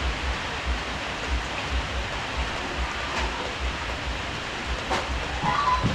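Heavy rain falling in a steady hiss, with a low, repeated thudding underneath at about two or three a second. There is a sharp click about five seconds in.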